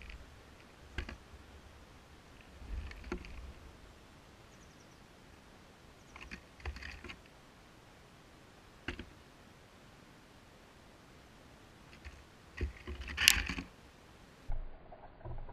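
Scattered sharp taps and knocks, one every second or few, with a few faint short chirps between them; the loudest is a quick cluster of knocks about 13 seconds in.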